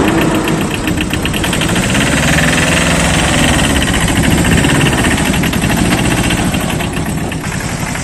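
Tata Ace mini truck's engine running with a steady, rapid clatter.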